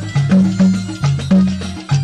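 Music from an Arabic song: a driving bass line with steady hand percussion, with no singing.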